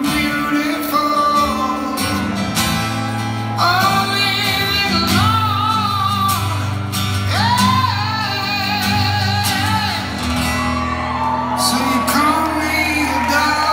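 Live male rock vocal with acoustic guitar in a concert hall: long sung notes with vibrato, entering strongly about three and a half seconds in and again near the middle, over sustained guitar chords.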